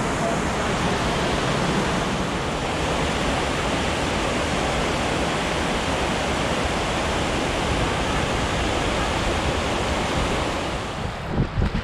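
Steady rushing of the Maitland River's whitewater rapids, an even noise of flowing water. A few low thumps come near the end.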